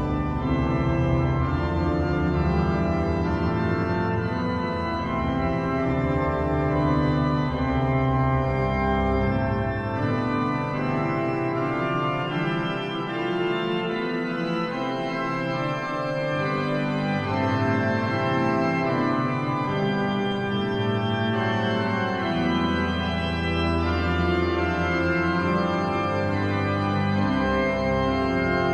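Pipe organ music played on the Hauptwerk virtual pipe organ, sampled from real pipe ranks: held chords over low pedal notes. The pedal bass drops out for a few seconds midway, then comes back in.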